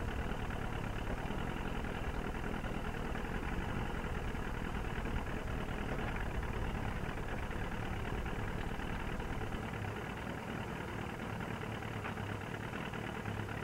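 Tow boat's engine idling steadily, a low continuous hum, while the skier in the water gets ready.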